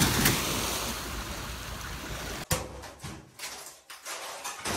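Off-road 4x4 engine running under a steady rushing noise that slowly fades, cut off suddenly about halfway through. A few faint knocks and clatters follow.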